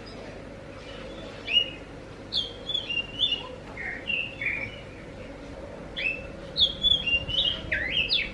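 Oriental magpie-robin (kacer) singing: clear whistled notes sliding up and down. They come in two runs of phrases, the second starting about six seconds in.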